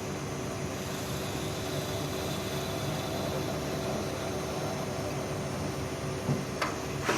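CNC lathe running: a steady machine hum with a faint high whine for a few seconds, and two sharp clicks near the end.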